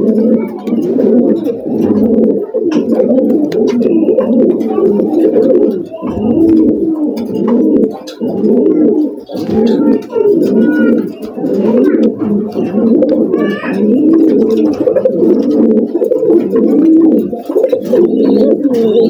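Domestic pigeons cooing, many coos overlapping in a continuous chorus.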